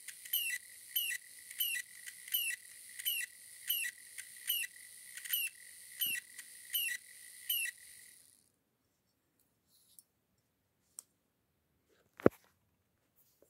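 Small game-controller DC motor running on a 9-volt battery, with a steady high whine and a squeak repeating about three times every two seconds: the noise of its dry, unlubricated shaft bearing. It stops about eight seconds in, and a single sharp click comes near the end.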